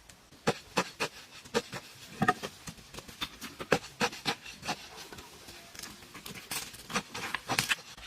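A run of irregular sharp clicks and knocks, several a second, with rubbing or scraping between them.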